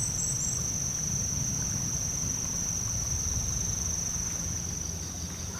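Insects trilling in one steady, unbroken high tone over a low, steady rumble, with a few brief higher chirps right at the start.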